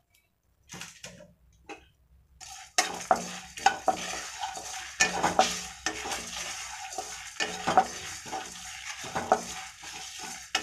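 Spatula stirring dry-roasted whole spices and dals in a nonstick pan, mixing in asafoetida powder: dry seeds rattle and scrape across the pan with small clicks, starting about two and a half seconds in.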